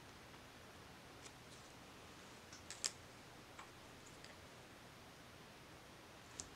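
Near silence broken by a few faint, sharp clicks and taps of nail-stamping tools, a scraper card and a clear stamper, against the metal stamping plate and table. The sharpest click comes just under three seconds in and another near the end.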